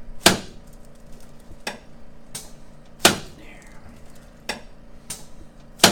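A series of about seven sharp clicks and knocks from the chiropractic adjusting table and its headpiece as the patient settles onto his back, the loudest about a quarter second in, near the middle and at the end.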